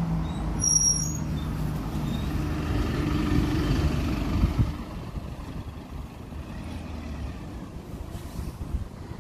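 Single-deck diesel bus driving past close by, its engine building to a peak about four seconds in and then fading as it moves away. A brief high squeal about a second in.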